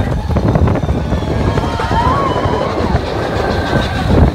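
Big Thunder Mountain Railroad mine-train roller coaster running along its track, heard from on board as a steady loud rumble and rattle of the train. A brief wavering squeal rises and falls about two seconds in.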